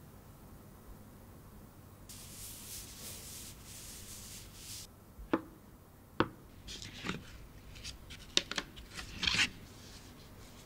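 Cloth-gloved hands handling a smartphone and its cardboard packaging: a soft rubbing hiss, then two sharp taps about a second apart, followed by a run of rustles and scrapes as a card insert is lifted from the box.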